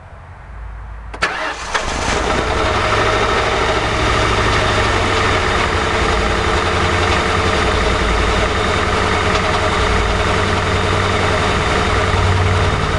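A 2006 Ford Crown Victoria Police Interceptor's 4.6-litre V8, heard close up from on top of the radiator, is cranked and catches about a second in, then settles into a steady idle. The idle is rough; the engine shivers as it runs.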